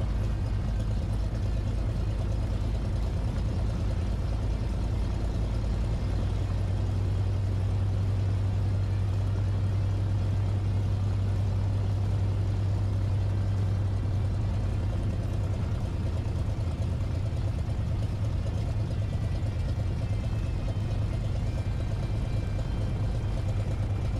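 Cessna 337 Turbo Skymaster's push-pull pair of turbocharged piston engines running steadily at taxi power, heard inside the cockpit as a low drone. The drone grows stronger for several seconds in the middle.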